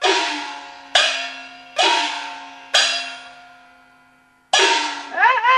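Chinese opera gong percussion accompanying the puppet play: five ringing metal strikes, each dying away slowly. A wavering high note starts near the end.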